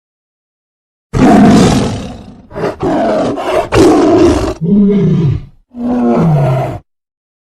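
Tiger roaring in a run of loud calls, the first and loudest starting abruptly about a second in. The last two calls carry a clear moaning pitch that bends and then falls, before the sound cuts off sharply.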